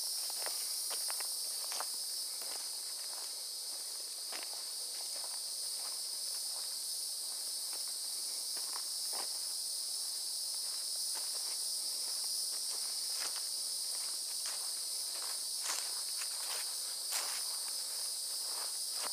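Footsteps through grass and sand, irregular, thinning out for a few seconds partway through, over a steady high-pitched chorus of insects that drones without a break.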